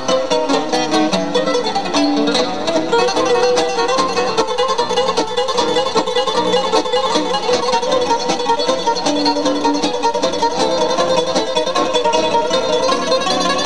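Acoustic guitars plucked together, playing an instrumental tune.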